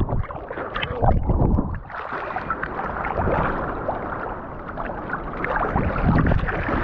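Sea water sloshing and splashing around people wading in the shallows, with a few low thumps near the start and about a second in.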